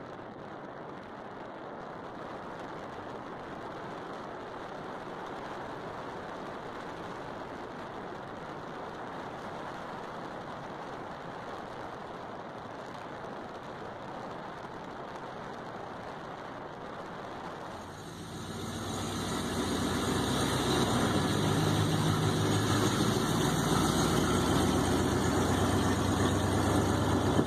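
Car driving, heard from inside: an even road and engine rumble. About eighteen seconds in it grows much louder, and a steady engine hum with several held tones joins it.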